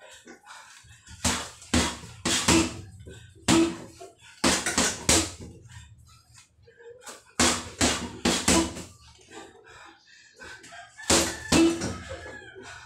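Boxing gloves punching a hanging heavy bag in quick bursts of two to four blows, with pauses of a second or two between them; each hit is a sharp slap with a dull thud.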